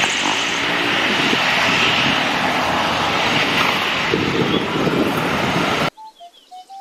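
Citilink Airbus A320 jet airliner rolling along the runway, its jet engines giving a loud, steady noise. The noise cuts off suddenly about six seconds in, leaving a few faint short tones.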